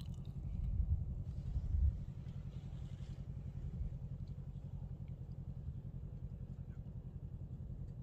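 ATV engine idling: a low, steady rumble with a quick, even pulse, a little louder for a moment about a second in.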